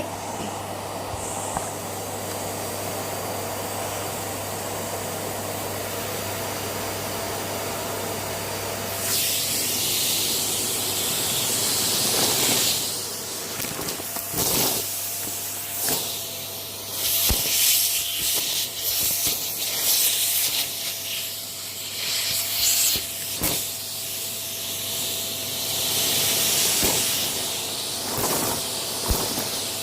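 Close-up crunching and crumbling of a brittle material, in irregular noisy bursts with a few sharp clicks, starting about nine seconds in after a steady background hiss and low hum.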